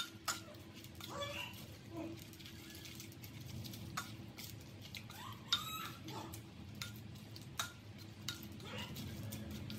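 A spoon stirring and tossing pickled water spinach in a pot, with soft scraping and several sharp clicks of the spoon against the pot's rim and sides.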